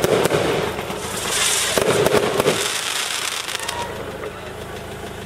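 Fireworks bursting, a dense run of crackles and pops with a hiss, dying away about three seconds in.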